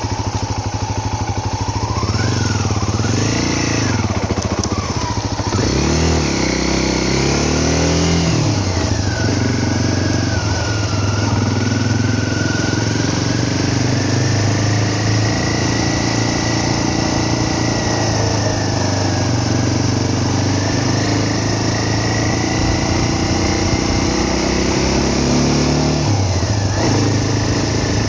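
Motorcycle engine running while riding, the revs rising and falling several times in the first eight seconds or so, then holding a fairly steady pitch with small swells.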